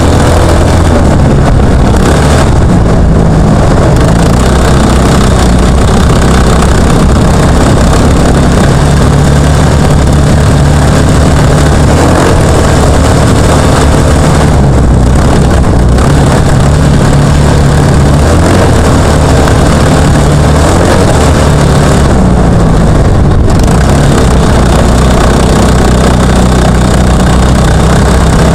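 Junior trophy kart's engine running under racing load, heard from on board, very loud throughout. Its pitch rises and falls several times as the throttle is worked, with a few brief drops in the high noise around 3, 15 and 23 seconds in.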